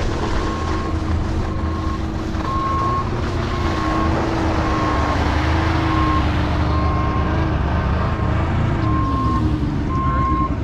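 Steady engine rumble with a short, high beep repeating about once a second.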